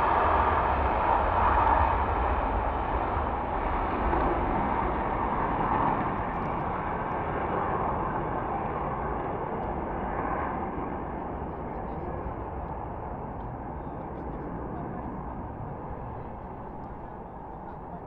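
Jet noise from a departing F-35A's F135 turbofan, a steady rush that fades and grows duller as the fighter climbs away after takeoff.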